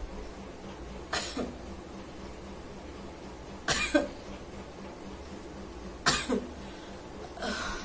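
A woman sneezing four times, about two and a half seconds apart. Each is a sharp burst of breath with a short voiced tail, brought on by a tickle in the nose.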